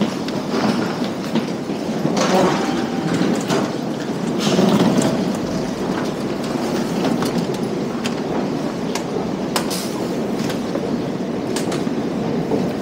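Busy railway station concourse ambience: a steady rumble of station noise with scattered clicks and footsteps, a little louder about two and five seconds in.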